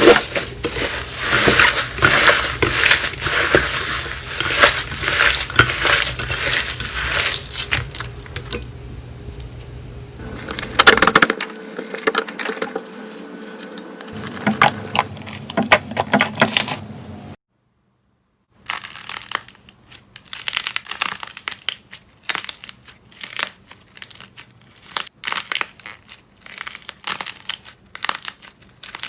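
Slime being squeezed and poked by hands, making dense crackling and popping clicks. The sound breaks off for about a second two-thirds of the way through, then goes on as sparser crackles.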